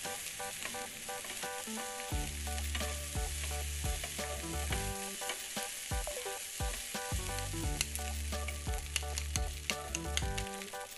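Rice and vegetables sizzling as they are stir-fried in a non-stick pan, with a spatula scraping and tapping against the pan, the taps more frequent in the second half. Background music with a bass line plays throughout.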